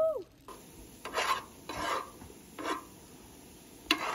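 Metal tongs scraping and tossing sliced peppers, onions and zucchini in a pan on a camp stove, four separate scrapes about a second apart.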